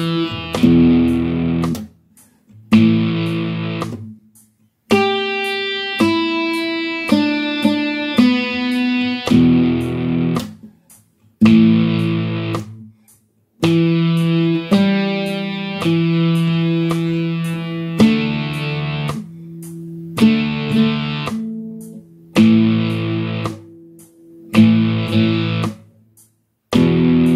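Guitar playing a slow rock riff of two-string power chords and short single-note runs, each phrase stopping briefly before the next.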